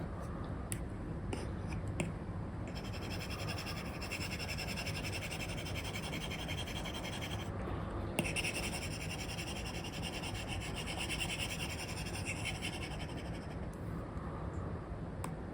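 Apple Pencil nib scratching across a paper-like matte screen film: a few light taps, then two long runs of quick sketching strokes with a short break between them, over a steady low background hiss.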